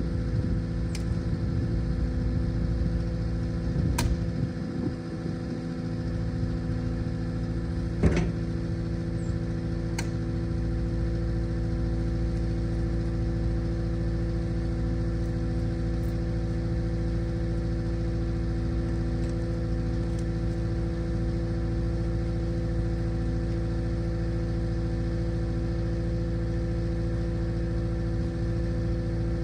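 Skid steer's diesel engine running steadily, with a few sharp metal knocks in the first ten seconds, the loudest about eight seconds in.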